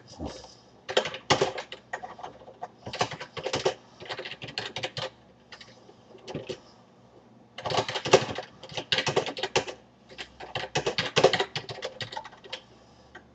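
Typing on a computer keyboard: four quick bursts of keystrokes with short pauses between them.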